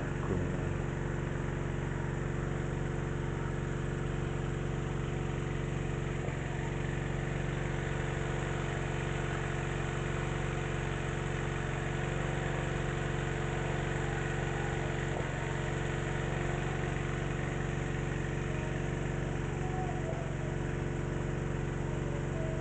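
Small stationary engine running a suction water pump, holding a steady, unchanging speed. The engine is fuelled by LPG rather than petrol.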